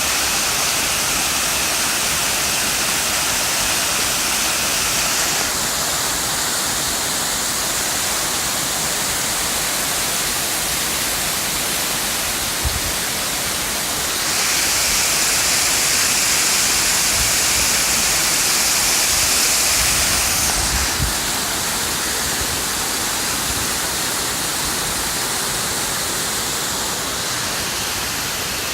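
Benang Kelambu waterfall's falling water rushing as a steady, loud hiss. It swells louder and brighter for several seconds in the middle, with a couple of faint low knocks.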